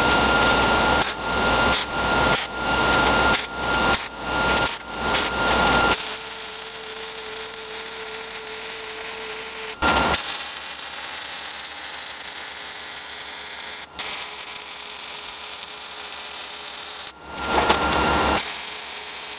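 A handheld electric power tool working on steel: a high motor whine in a run of short passes, then a steadier hiss with a lower hum, and the whine comes back briefly near the end.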